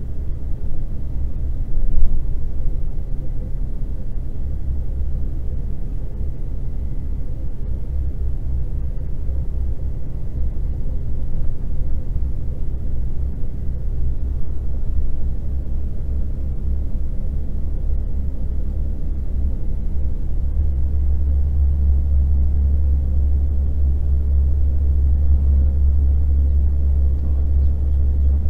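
Car on the move, heard from inside: a steady low rumble of engine and road noise, with a brief thump about two seconds in. The rumble grows louder and steadier about twenty seconds in.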